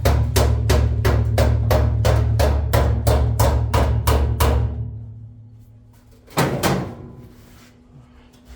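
Rapid, evenly spaced strikes, about four a second, over a steady low hum. Both stop together about five seconds in, followed by one more loud knock with a short ring.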